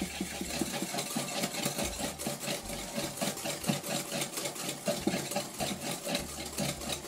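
Wire balloon whisk beating an egg, sugar and oil batter in a glass bowl: fast, even whisk strokes against the glass, several a second.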